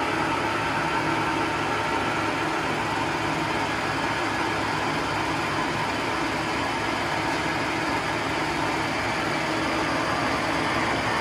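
Clausing Colchester 17-inch lathe running with no cut, its spindle and chuck turning, giving a steady machine hum with a few faint steady tones.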